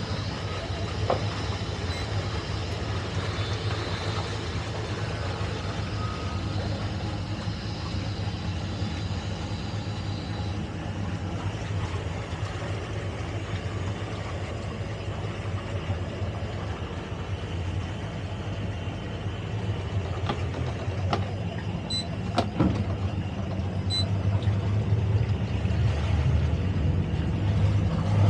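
Towboat's engines running steadily at low speed as it moves a boat tied alongside, a low hum that gets louder near the end. A few sharp clicks and short high beeps come through a little before the end.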